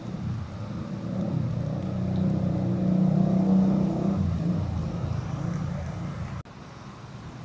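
Road traffic passing on a wet street: a city bus's engine swells to a peak about halfway through and fades as it goes by, with motorcycles and tyre hiss underneath. The sound drops off abruptly near the end.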